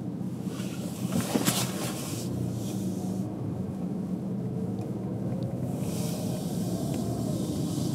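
Road noise of a car being driven: a steady low drone of tyres and engine. Two spells of hiss ride over it, and the first holds a brief louder rush about a second and a half in.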